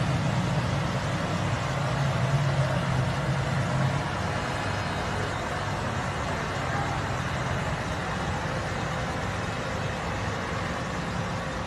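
A motor vehicle's engine running steadily amid street traffic noise, with the low engine hum strongest for the first few seconds.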